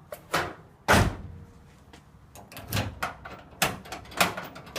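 Door lock and latch mechanism of a 1978 Chevy K10 pickup door being worked to test a newly fitted lock: a series of sharp clicks and clunks, the loudest about a second in.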